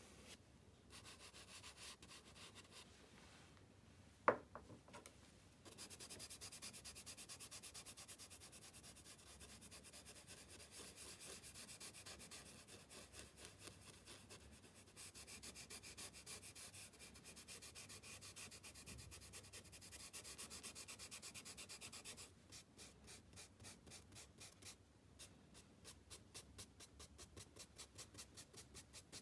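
Faint charcoal rubbing and scrubbing on sketchbook paper as a mark is shaded and blended with a small hand tool, with one sharp tap a few seconds in. Fast continuous rubbing runs through the middle and changes near the end to evenly paced short strokes.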